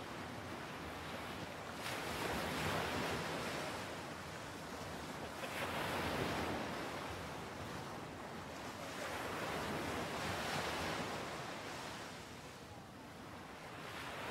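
Ocean surf breaking on a sandy beach: a steady wash of surf that swells and falls as each wave breaks, three surges about four seconds apart, with another building near the end.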